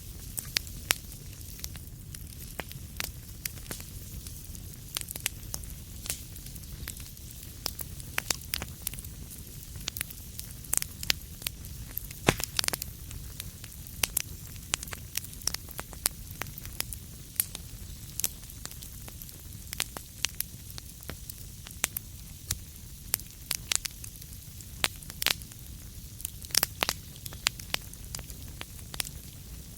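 Wood fire crackling in a fireplace: irregular sharp pops and snaps, some much louder than others, over a steady low rumble of the burning fire.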